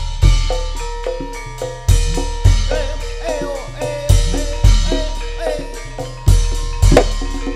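Band music: heavy, booming drum strikes come in pairs about half a second apart, every two seconds or so, with a melody of short pitched notes played between them.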